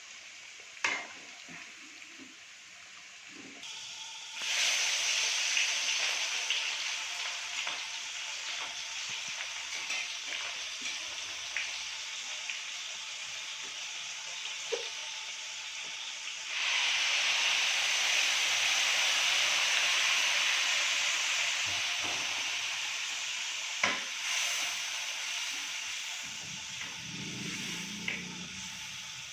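Food frying in hot oil in a pan: a steady sizzle that jumps up sharply about four seconds in, eases off, then surges again about halfway through. A few short clinks of a utensil are heard as well.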